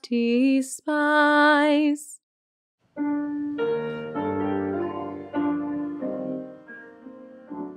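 A solo voice sings a held final word, 'despise', then after about a second of silence a piano plays a short run of chords introducing the psalm refrain, the notes fading away near the end.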